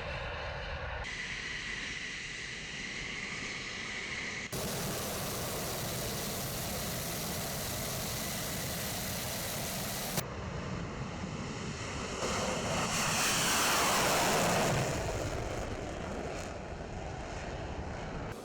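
Military aircraft engine noise cut together from several clips: a steady, loud rushing roar, then a jet passing with its pitch falling as it goes by.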